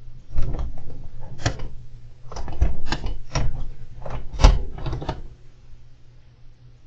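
A hamster moving about its cage, making a dozen or so irregular clicks and knocks. They come in uneven clusters, the loudest about four and a half seconds in, and stop near the end.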